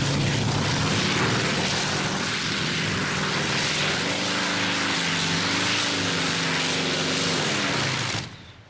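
Modified pulling tractor's engines running at full power as it drags the brake sled down the track: a loud, dense engine sound whose note wavers and bends over the last few seconds of the pull. It stops abruptly near the end.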